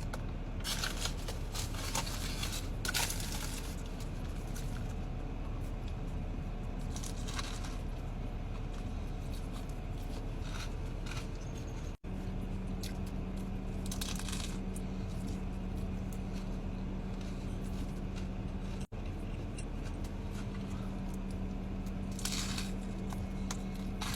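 Someone eating a chicken Caesar wrap: chewing, with crinkling and crunching now and then from the bites and the wrap's packaging, over a steady low hum.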